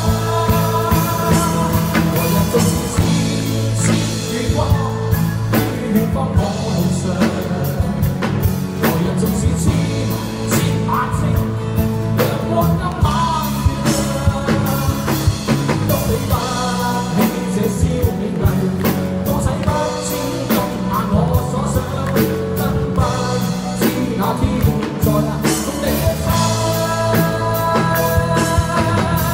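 Live Cantopop ballad: a male singer singing into a microphone over amplified acoustic guitar and a fuller accompaniment with a steady drum beat.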